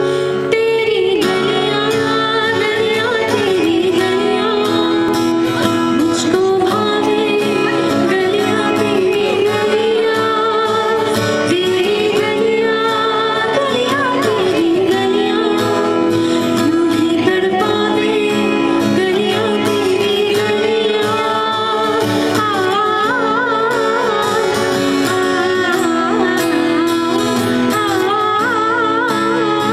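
A woman singing over acoustic guitar accompaniment, a live duo performance through microphones; her held notes waver with vibrato, especially in the second half.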